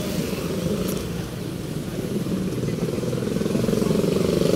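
Motor vehicle engine running, its pitch rising near the end as it speeds up.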